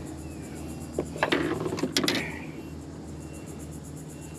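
Fishing reel ratcheting: a quick run of sharp mechanical clicks about a second in, lasting about a second.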